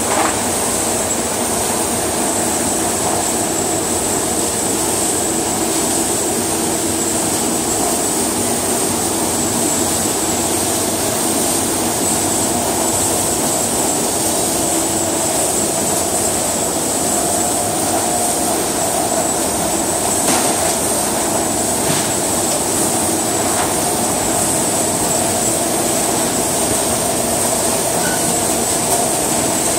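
Steady mechanical din of a crab-processing line: conveyors and motors running continuously, with a constant high whine. A couple of short knocks come about two-thirds of the way in.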